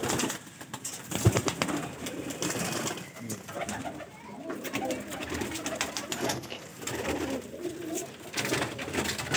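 Domestic pigeons cooing in a loft, with scattered sharp clicks and rustles throughout.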